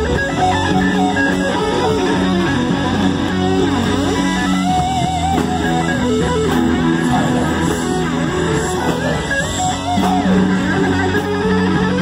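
Live rock band playing an instrumental passage: an electric guitar lead with bent, wavering notes over drums and bass guitar.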